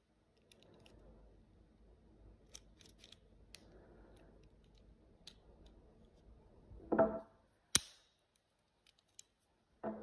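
Plastic EAS security tag handled in gloved hands: faint rustling and small clicks, then a clack about seven seconds in and a sharp click just after as the tag comes apart, with two more clacks near the end.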